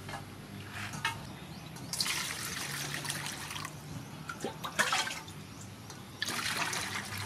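Water poured from a plastic scoop into a stainless steel bowl holding basil leaves and lemongrass stalks, splashing in three separate bursts, the last near the end.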